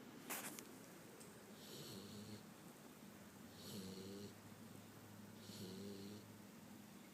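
Boxer puppy snoring faintly in its sleep, three snores about two seconds apart. A short click comes just after the start.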